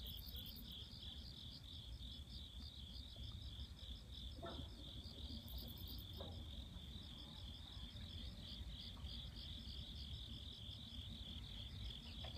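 Insects chirping at night in a steady, high, pulsing chorus of about four pulses a second, over a low rumble.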